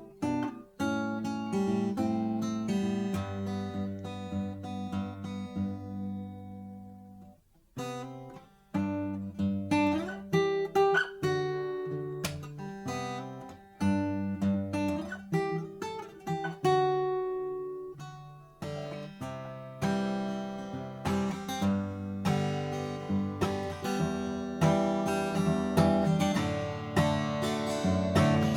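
Martin D-1 Authentic 1931 12-fret dreadnought acoustic guitar being played, strummed chords mixed with picked notes. Partway through a chord is left to ring and fade away, then the playing picks up again and grows louder toward the end.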